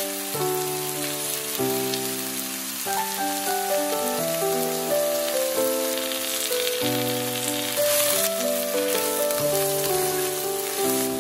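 Instrumental background music of held chords that change every second or so, over the sizzle of spinach and sliced mushrooms sautéing in a pan.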